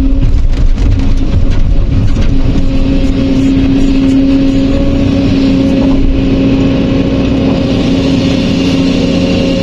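A heavy diesel engine on construction machinery running steadily under load, with a constant hum over a low rumble.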